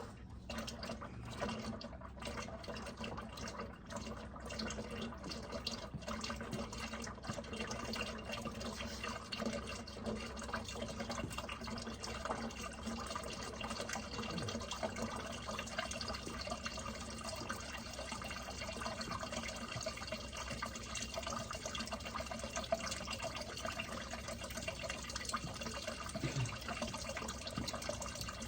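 Engine oil running steadily out of a Can-Am Spyder F3's drain plug hole and pouring into a drain pan.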